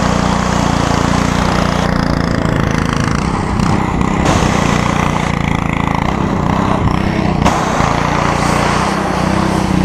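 Simpson MSH3125 gas pressure washer running steadily: the low drone of its engine under the hiss of the high-pressure water jet.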